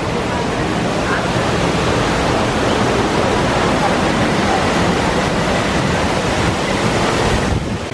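Waterfall pouring and splashing down over rocks: a loud, steady rush of falling water.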